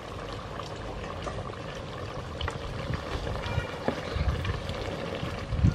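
Chicken curry bubbling in an open aluminium pot, stirred with a long spoon that now and then knocks faintly against the pot.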